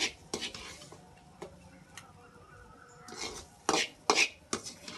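Metal spoon scraping and clinking against a steel kadai while scooping out a cooked spice stuffing mixture, in several short scrapes, the two loudest close together near the end.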